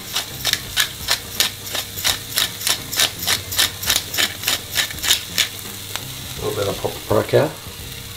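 Pepper grinder being twisted by hand, a quick steady run of about three crunching clicks a second that stops a little after five seconds in, over the sizzle of onions frying in the pan.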